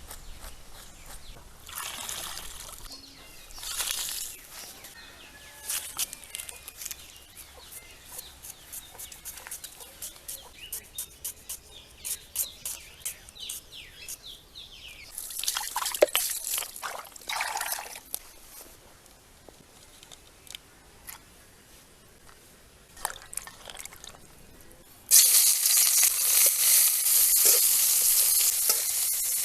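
Water trickling and pouring with scattered small clicks and knocks. Near the end, food goes into hot oil with a sudden loud sizzle that keeps frying steadily.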